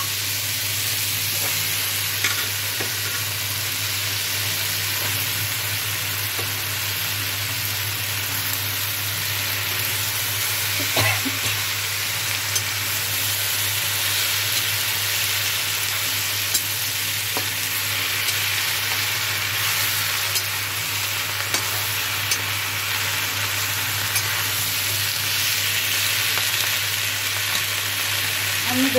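Vegetables and pui shaak (Malabar spinach) leaves frying in a metal wok with a steady sizzle, with a few short scrapes and clicks of a metal spatula as they are stirred.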